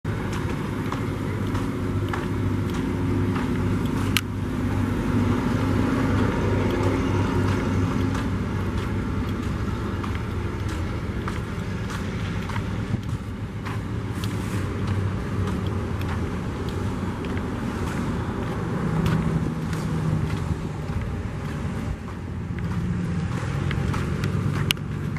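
A motor vehicle engine running steadily, its hum shifting in pitch now and then, with a sharp click about four seconds in and another near the end.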